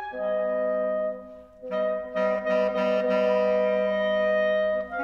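Clarinet, bass clarinet and bassoon trio playing held chords of several notes together. The chord breaks off about a second and a half in, comes back with a few short separated notes, then holds again.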